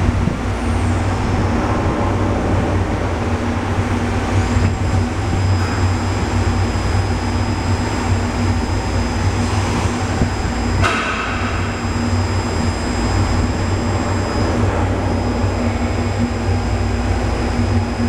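2007 Kia SKT-21LM CNC turning center running, its spindle turning a metal part while a boring bar works inside the bore: a steady machine hum. A thin high whine joins about four seconds in, and there is one brief sharp noise about eleven seconds in.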